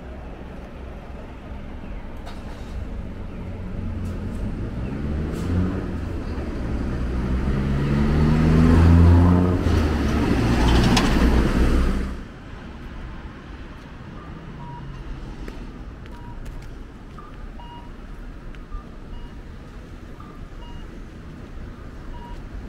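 A motor vehicle passing close by, its engine note rising and growing louder for several seconds, then cutting off abruptly. Faint electronic beeps then repeat at a steady pace.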